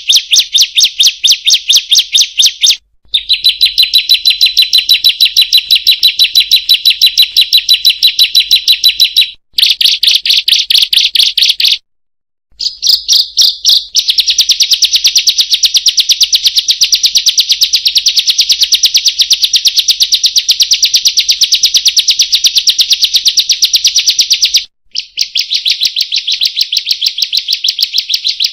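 Ciblek (bar-winged prinia) calling a fast, unbroken string of high, sharp 'kriek-kriek-kriek' notes. It comes in long bouts broken by a few short pauses, about 3, 9, 12 and 25 seconds in.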